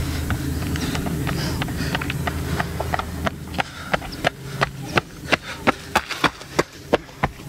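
A runner's footsteps slapping on stone flags, about three strides a second, growing louder as the runner comes closer and loudest as he passes near the end. A low rumble sits under the first half.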